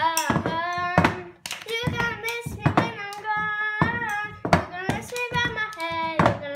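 Voices singing along to a cup game, with paper cups knocked on a table and hands clapping, the knocks and claps punctuating the singing.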